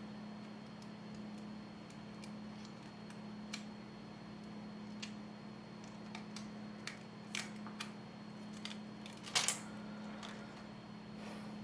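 Light scattered clicks and taps of small repair tools and smartphone parts being handled, with a brief louder cluster of clicks about nine seconds in, over a steady low hum.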